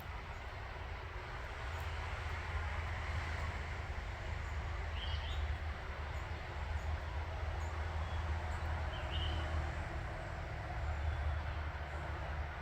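Outdoor background ambience: a steady low rumble with a few brief high bird chirps now and then.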